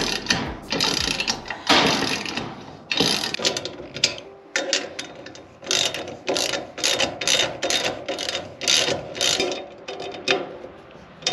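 Hand socket ratchet clicking as nuts are tightened onto the bolts of a steel cart's handle bracket. It goes in repeated back-and-forth strokes: longer ones at first, then quicker strokes at about three a second in the second half.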